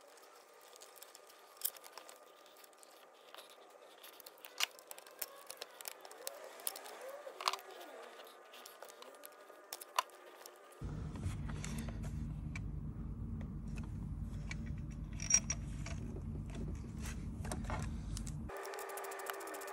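Scattered light metallic clicks and taps of a diesel fuel injector, its clamp, bolt and high-pressure pipe being handled and fitted by hand in the engine bay. A steady low rumble comes in about eleven seconds in and stops shortly before the end.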